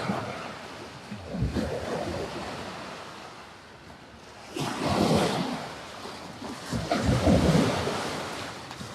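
Small waves breaking on the Sea of Galilee shore: a steady wash with three louder surges as waves crash in, the last two the loudest.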